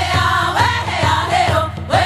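Background song: sung voices over music with a steady low beat.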